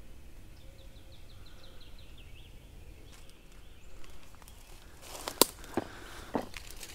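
Footsteps crunching and crackling through dry leaf litter and brush, with a cluster of sharp crackles about five seconds in. Earlier, a faint series of quick bird chirps.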